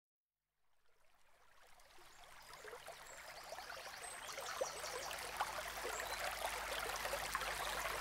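Waterfall water splashing and rushing down a rocky mountain stream, fading in from silence and growing steadily louder.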